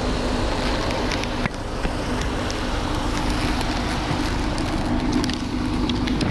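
Motorcycle engine running at low speed, heard through a helmet-mounted camera's microphone with steady wind rumble over it.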